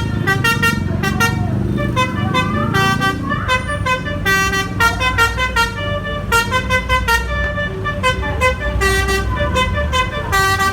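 Basuri (telolet) multi-tone musical air horn on an SJM Trans bus, playing a fast run of short notes at changing pitches, over the low rumble of the bus engine.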